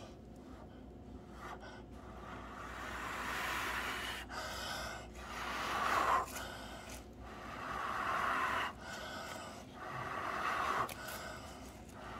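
A person blowing hard through the mouth onto wet acrylic paint: four long breathy puffs a couple of seconds apart, with short pauses between them.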